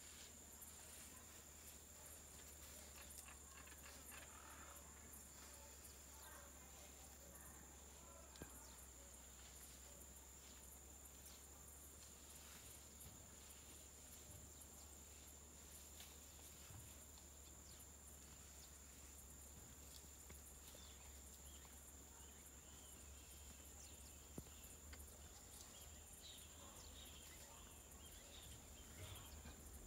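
Near silence: faint outdoor ambience with a steady high-pitched insect drone and a few faint ticks.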